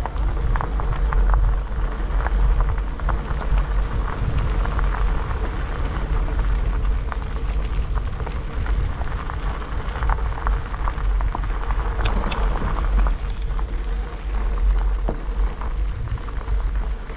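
Wind rumbling on the microphone and bicycle tyres crunching over a gravel road during a ride, with many small clicks and rattles from the bike and stones.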